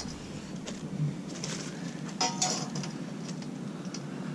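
Steel bandsaw blade, folded into a coil, clinking and ticking as its loops knock together while it is handled. There is a short metallic ring about two seconds in.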